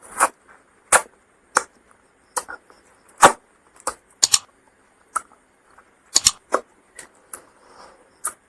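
Close-miked mukbang eating noises: a string of short, sharp mouth clicks and crunches from chewing, irregularly spaced at about two a second.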